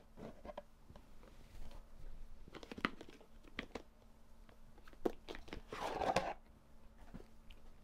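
Hands handling a cardboard jewellery box and its paper packaging: faint scattered taps and clicks, with a longer rustle about six seconds in.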